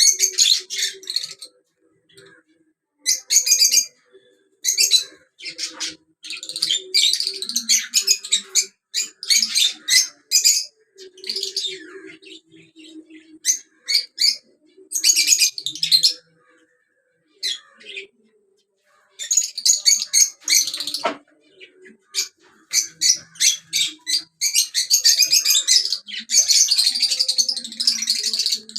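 Lovebirds chirping in shrill, rapid bouts of high, scratchy chatter, broken by short pauses.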